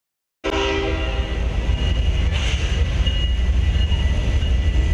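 Freight train's diesel locomotives passing close by with a heavy, steady low rumble. The sound cuts in about half a second in with the tail of a horn blast, which fades within the first second.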